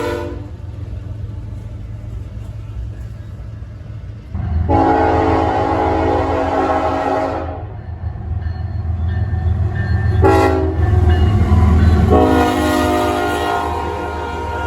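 Amtrak passenger train passing with the locomotive's air horn sounding a salute: a blast ends just at the start, a long blast runs from about four and a half to seven and a half seconds in, a short one comes around ten seconds, and another long one starts about twelve seconds in, all over the train's steady low rumble.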